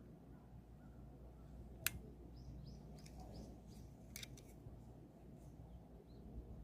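Faint, short bird chirps over a low steady background rumble, with one sharp click about two seconds in and a few more clicks around three and four seconds.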